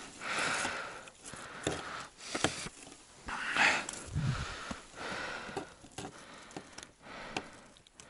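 A man's breathing and sniffing close to the microphone, several short puffs a second or two apart, with light clicks and scrapes of a folding knife slitting open a small fish on a wooden board.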